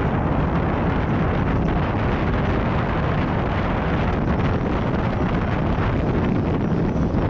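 Luge cart rolling fast down the paved track, its wheels rumbling, with wind buffeting the GoPro's microphone; a steady, loud rushing noise.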